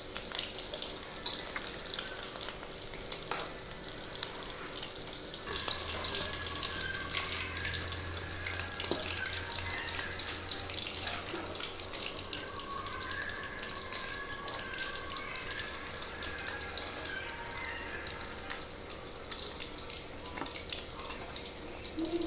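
Chicken pakoras deep-frying in hot oil in a kadai, nearly done: a steady bubbling sizzle and crackle, with a few clinks of a steel slotted spoon against the pan as the pieces are turned and lifted out.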